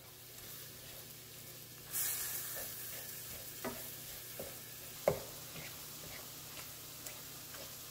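Breakfast sausage starting to sizzle in a stainless steel pan as a wooden spoon breaks it apart and stirs it. The steady hiss of the frying comes in about two seconds in, with a few light knocks of the spoon against the pan, the loudest about halfway through.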